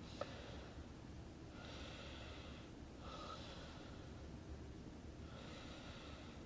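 A person breathing audibly, one breath about every one and a half to two seconds, over a low steady hum, with a single sharp click about a quarter second in.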